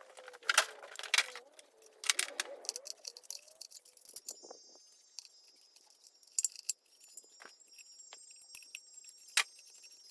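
Light metallic clinks, taps and jangles of tools and small metal parts being handled on an engine, with several sharper clinks, the last one near the end.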